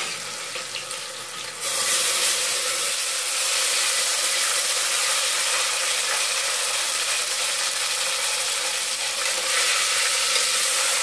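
Hot oil sizzling in an aluminium pressure cooker. The sizzle grows louder about a second and a half in as chopped tomato and garlic go in on top of the fried onion and green chilli.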